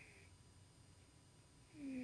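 Domestic cat snoring in its sleep: one short snore with a slightly falling tone tails off at the start and the next begins near the end, about two seconds apart.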